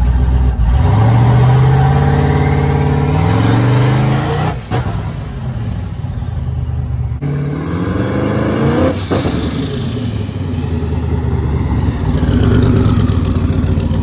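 LS V8 in a 1984 Chevrolet C10 accelerating hard, its revs climbing and then dropping sharply at each upshift. It is heard first from inside the cab, then from the roadside as the truck pulls past.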